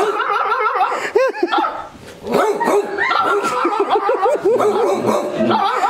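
Two people imitating dogs with their voices, barking and yelping back and forth at each other in quick, arching yelps, like two dogs quarrelling, with a brief pause about two seconds in.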